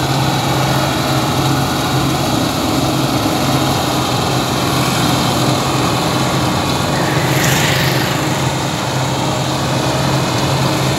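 New Holland 8070 combine harvester running steadily as it works through the field, a constant engine drone with a strong low hum. A brief rushing hiss comes through about seven seconds in.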